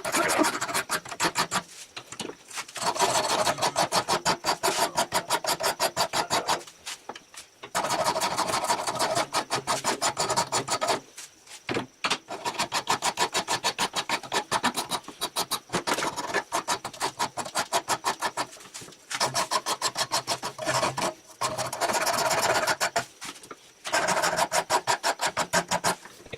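Hand wood file rasping back and forth across a hardwood handle in quick, even strokes, several a second. The strokes come in bouts of a few seconds with short breaks between them.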